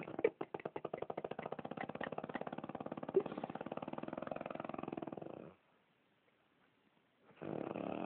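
A woman snoring in her sleep: one long rattling snore made of fast, fluttering pulses lasts about five and a half seconds. After a pause of nearly two seconds, the next snore starts near the end.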